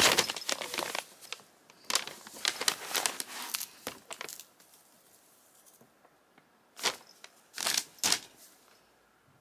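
Packing paper crinkling and rustling as a ragdoll kitten paws and bites at it. The rustling comes in bursts: at the start, again from about two to four and a half seconds, then two short crinkles near the end after a quiet stretch.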